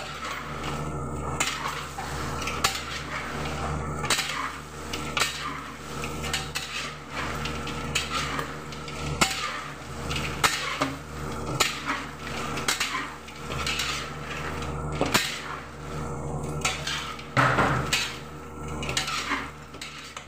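Metal ladle and turner clanking and scraping against a large steel wok in repeated, irregular knocks as crispy fried chicken is tossed in garlic butter, over a steady low hum.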